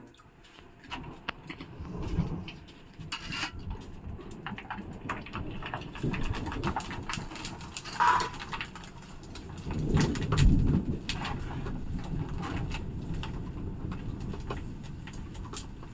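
Steady rain with scattered sharp clicks and taps of steel utensils. Low rumbles come about two seconds and ten seconds in, the one near ten seconds the loudest.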